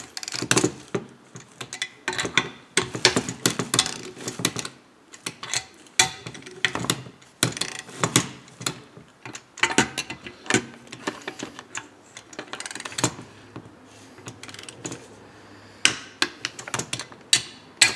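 Ratchet head of a torque wrench clicking in quick runs as the hex-bit bolts of a chainsaw crankcase are tightened a little at a time toward their torque of 8 newton metres, with a few short pauses between runs.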